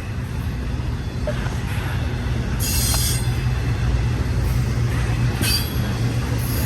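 Intermodal freight train's spine cars loaded with truck trailers rolling past with a steady low rumble, broken twice by brief high-pitched screeches from the wheels on the rails, a longer one about two and a half seconds in and a shorter one about five and a half seconds in.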